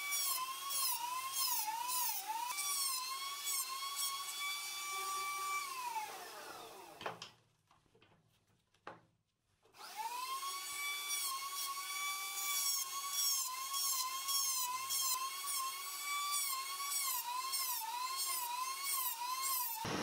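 A small high-speed electric power tool whining, its pitch dipping again and again as it is pressed into the work. It spins down and stops about seven seconds in, then after a couple of seconds of quiet starts up again and runs on with the same dips.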